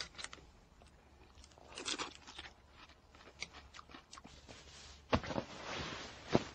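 Faint rustling and crunching handling noises with scattered small clicks, and two sharp clicks: one about five seconds in and one near the end.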